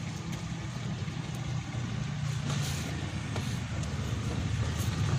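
A motor vehicle's engine running at low revs nearby, a steady low rumble, with a light metal clink right at the start as an aluminium lid is set on the cake pan.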